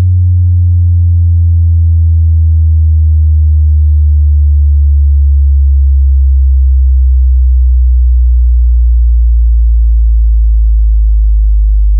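Deep bass test tone, a loud steady sine-like hum that slides slowly down in pitch, the kind of signal used to test a subwoofer's bass response.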